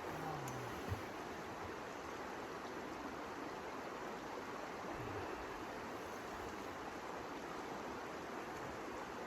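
Steady rushing noise of blizzard wind, even and unbroken, with a brief low knock about a second in.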